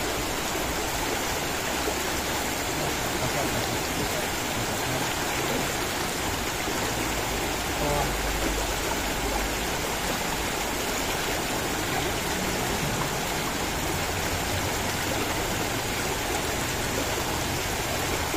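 Shallow river water rushing over rocks, a steady flowing noise.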